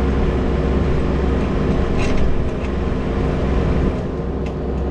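Kubota U17 mini-excavator's diesel engine running steadily as it works, with a few sharp knocks or cracks about two seconds in and again near the end, consistent with the bucket working at the slab.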